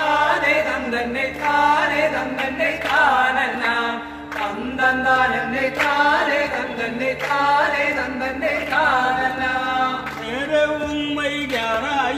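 Devotional song soundtrack: a voice singing long, drawn-out phrases that slide up and down in pitch, over a steady drone.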